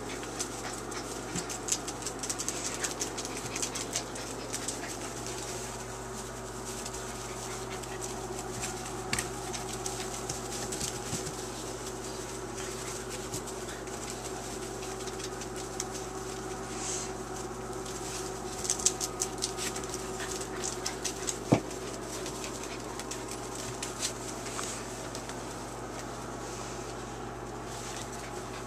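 Five-and-a-half-week-old puppies at play in wood shavings: small puppy whimpers and panting amid constant scratching and rustling of paws in the shavings, with a few louder sharp noises, over a steady hum.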